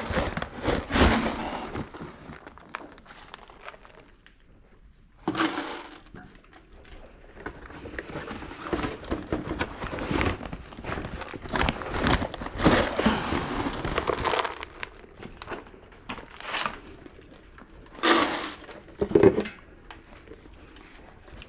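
Irregular rustling, crinkling and crackling handling noises that come in bursts, with quieter gaps between them.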